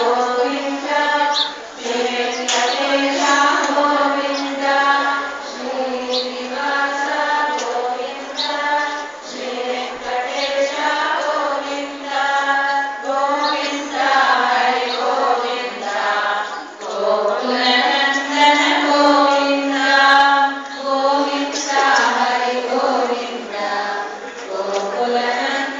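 A group of women's voices chanting a devotional refrain in unison, in short repeated sung phrases with no break.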